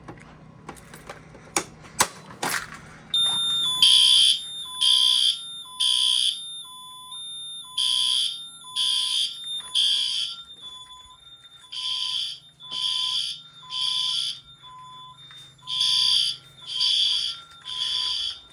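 Fire alarm horn strobes sounding the temporal-three evacuation pattern: three loud horn blasts about a second apart, a pause, then three more, repeating, with a quieter electronic beep pulsing underneath. This follows a few sharp clicks and knocks as the alarm is set off for a system test.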